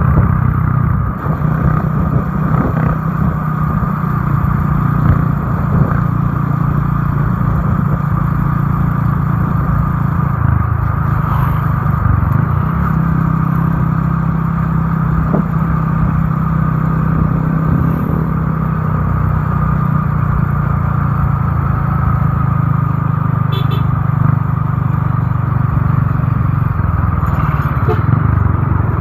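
Motorcycle engine running steadily at cruising speed, heard from on the bike, mixed with road and wind noise. The engine note holds nearly constant.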